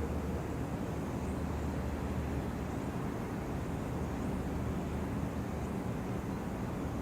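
Ship's engine running with a steady low rumble and a faint hum, under a wash of outdoor noise.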